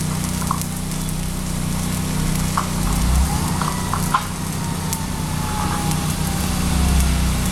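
Electric arc welding on a structural steel beam: the arc crackling and hissing steadily, with scattered sharp pops, over a steady low hum.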